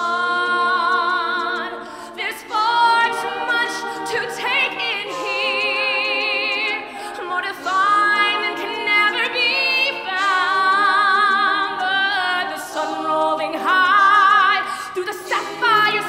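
All-female a cappella group singing: a solo voice holds long notes with a strong vibrato over sustained vocal chords from the rest of the group, with brief breaks between phrases.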